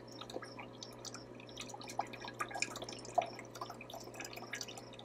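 Red Sea Reefer RSK 300 protein skimmer running in a bucket of water during its break-in: a steady low hum under constant dripping and small bubble pops and splashes.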